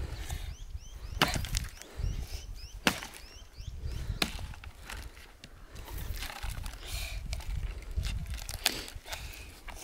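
An axe chopping a dry tree branch into firewood: four sharp, cracking strikes at uneven intervals.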